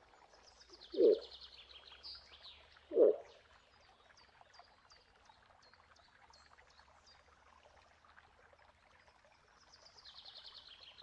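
Two short, loud animal calls about two seconds apart, each dropping steeply in pitch, over faint bird chirps and trills.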